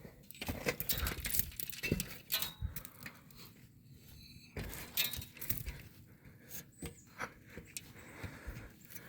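Snow crunching and crackling close to the microphone in irregular bursts, busiest in the first three seconds and again around the middle.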